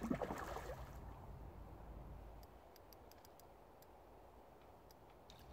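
A hooked mirror carp splashing at the surface close in while being played on the rod, a brief splash near the start, followed by a few faint ticks.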